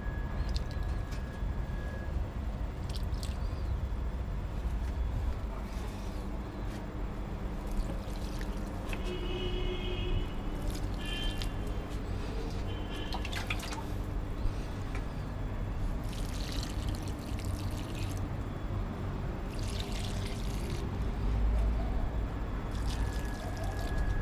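Water pouring and trickling onto potted plants in short spells every few seconds, over a steady low rumble.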